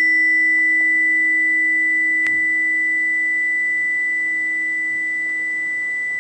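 A 320 Hz tuning fork (the note E) ringing after being struck: a steady pure tone with a fainter high overtone, slowly fading. A faint click comes about two seconds in.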